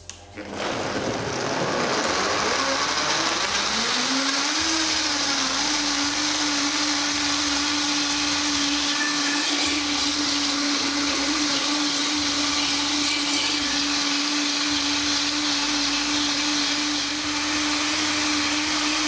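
Vitamix Professional 750 blender starting up and rising in pitch over the first few seconds as the speed is turned up from 1 toward 10, then running steadily at high speed, blending ice, greens and fruit into a smoothie.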